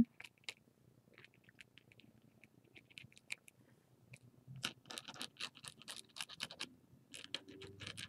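Faint scratching and dabbing of a paint-pen tip on paper as it doodles, a string of short strokes that come sparsely at first and thicker in the second half.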